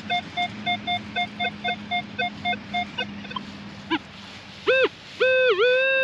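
Minelab Manticore metal detector beeping: short evenly spaced pips, about four a second, for the first half, then near the end a brief tone and a long steady tone that dips once in pitch as the coil passes over a buried target. It is the high-tone signal the detectorist takes for another 1 cent piece.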